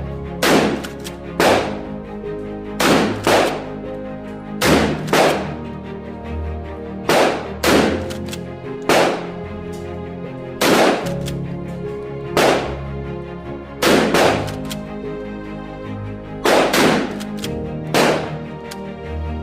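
Kel-Tec KSG 12-gauge pump shotgun firing about twenty shots, many in quick pairs about half a second apart, over background music.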